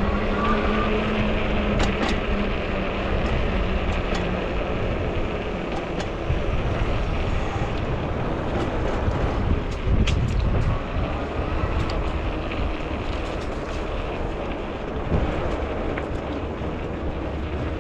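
Wind rushing over the microphone with road noise from a fat-tire e-bike being ridden, broken by scattered light clicks and rattles.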